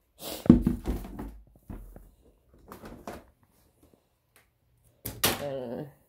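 Knocks and rustling of things being handled close to the microphone, loudest in the first second and a half, then a brief vocal sound with falling pitch near the end.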